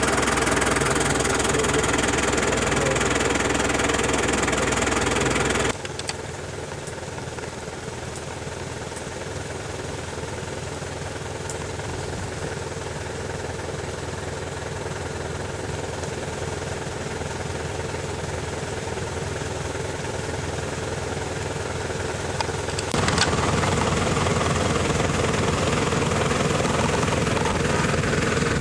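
A motor vehicle's engine running steadily. The sound drops suddenly to a quieter hum about six seconds in and comes back up just as suddenly about twenty-three seconds in.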